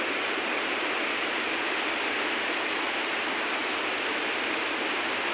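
Steady, even hiss with no change in level and no distinct events.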